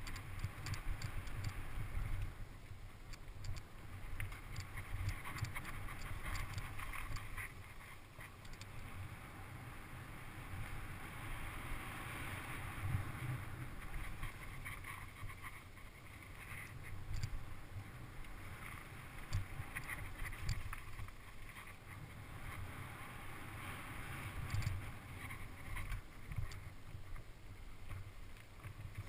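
Mountain bike riding fast down a dirt and gravel trail, heard from a camera on the bike or rider: a steady wind rumble on the microphone under the hiss of tyres on loose dirt, with frequent short rattles and clicks as the bike goes over bumps.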